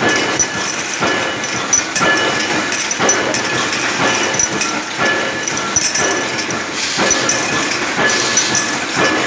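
Automatic trimming machine for aluminium aerosol cans running, a steady mechanical clatter with a regular stroke about once a second.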